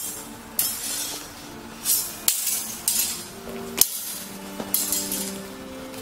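Steel broadswords clashing in a quick series of sharp clinks and scrapes, about one every half second to second with the sharpest near the middle. Several contacts leave the blades ringing briefly.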